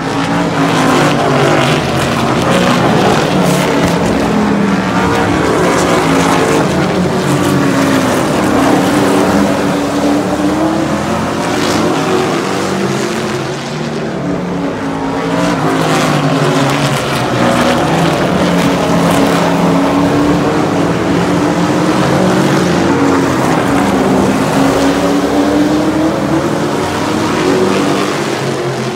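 A field of super truck race vehicles running laps on a short oval, their engines overlapping and rising and falling in pitch over and over as they pass.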